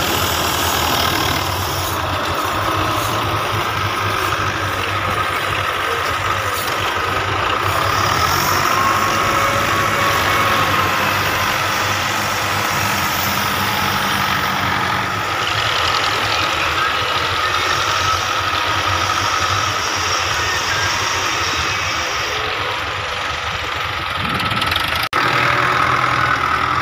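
Diesel engines of several Belarus 510 tractors running steadily as they work in the sand, with a brief dropout near the end.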